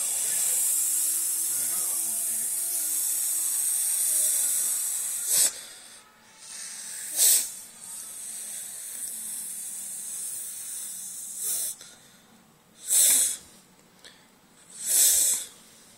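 A person making a snake's hiss with the mouth: one long steady hiss for about five seconds that cuts off sharply, then several short hisses a few seconds apart.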